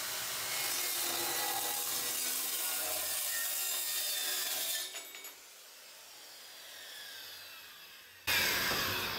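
Corded circular saw cutting through metal channel held in a vise: a dense, steady cutting noise for about five seconds. The cut ends and the blade winds down with falling pitch, then a sudden louder burst of noise near the end.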